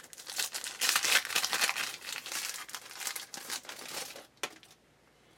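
Trading-card pack wrapper crinkling and rustling as it is torn open and handled, for about four and a half seconds, with a sharp click near the end.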